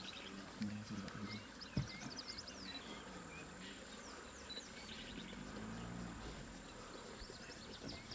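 Bush ambience: a steady high insect buzz, with many short, quick bird chirps over it and one sharp click about two seconds in.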